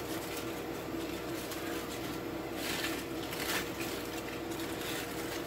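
Aluminium foil crinkling and rustling in irregular bursts as it is pulled open by hand, over a steady background hum.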